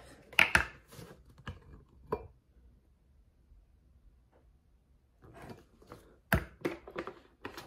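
Light clicks and knocks from handling a plastic vegetable-oil bottle and a glass measuring cup while oil is poured in. The pouring itself is almost silent. One sharper knock comes a little after six seconds in.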